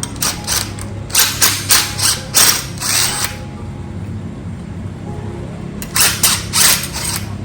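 Power drill enlarging a bolt hole in a sliding door handle, run in a string of short bursts twice, over steady background music.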